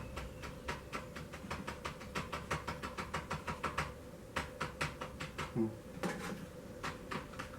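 Loudspeaker cone tapped rapidly by hand, about six sharp taps a second in runs with short pauses. The vibration makes the speaker act as a generator, lighting LEDs through a transformer.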